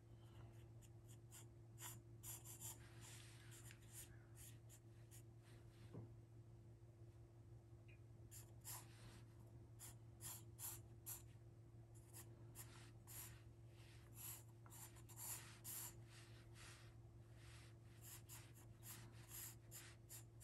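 Pencil sketching on paper: faint, quick scratchy strokes coming in clusters, over a steady low hum.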